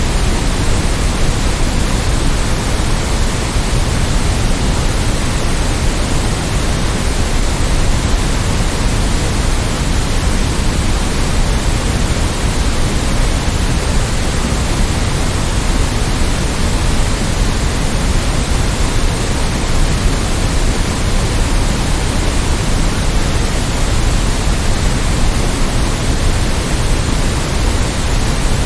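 Steady generated white noise: an even, unchanging hiss spread across all pitches, a little heavier in the low end.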